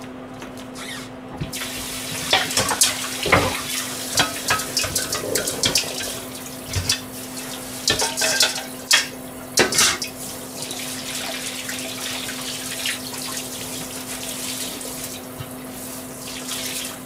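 Kitchen tap running into a sink while dishes and utensils are washed. The water comes on about a second and a half in, with clinks and knocks of crockery over the next several seconds.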